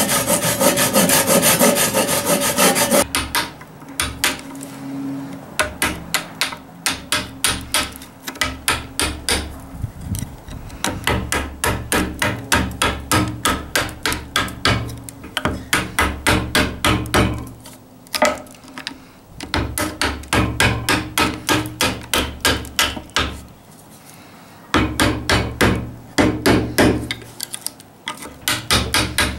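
Japanese hand saw cutting into red oak for about the first three seconds, then a chisel struck with a hammer in runs of quick, light, regular taps, several a second, with short pauses: chopping out waste for a sliding dovetail housing.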